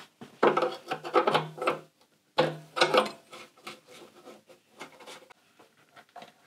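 Parts being worked by hand, rubbing and scraping with a squeaky edge, in a few bursts over the first three seconds, then a few faint light clicks.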